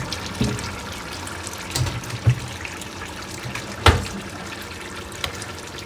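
Veal stew simmering in a pot: a steady watery hiss, with a few sharp knocks, the loudest about four seconds in.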